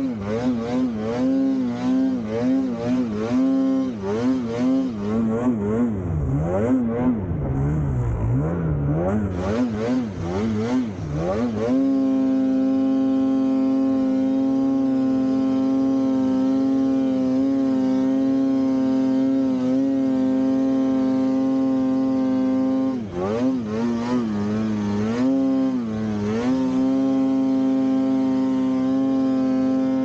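Polaris Khaos 9R snowmobile's two-stroke engine under throttle, its pitch rising and falling with repeated throttle blips for the first twelve seconds or so. It then holds one steady high pitch at sustained full throttle, dropping briefly twice near the end before climbing back.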